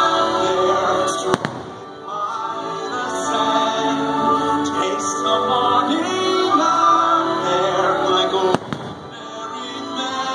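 Fireworks show music with voices singing, broken by two sharp firework bangs: one about a second and a half in and one about two seconds before the end.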